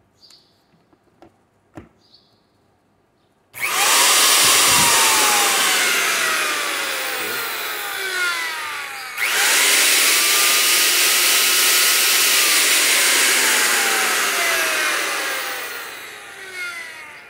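Minli 1650 W electric plunge router, with no bit fitted, test-run in the hand. After a few faint handling clicks it switches on about three and a half seconds in and runs at full speed with a loud, airy whine. It drops out briefly about nine seconds in, runs again, and winds down near the end.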